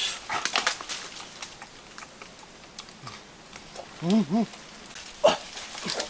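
Leaves rustling and branches creaking and snapping as a man climbs through a tree. About four seconds in come two short calls in quick succession, each rising and falling in pitch, louder than the rustling.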